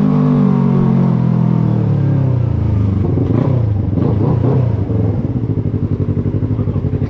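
Yamaha MT-03 motorcycle engine slowing down, its pitch falling over the first couple of seconds, then settling to a steady, evenly pulsing idle from about five seconds in.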